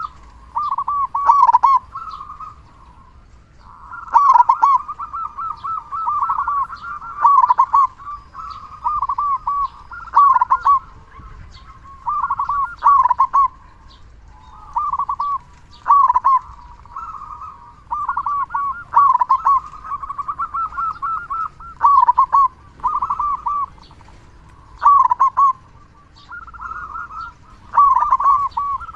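Zebra dove (perkutut) cooing over and over: phrases of short rolling notes, one after another every second or two with brief pauses between them.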